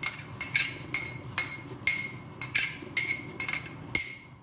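A metal spoon tapping against a bowl about ten times, roughly twice a second. Each tap is a sharp clink that rings on briefly at the same pitch.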